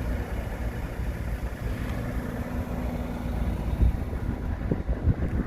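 Low, uneven rumble of wind buffeting the microphone outdoors, with a faint steady hum underneath.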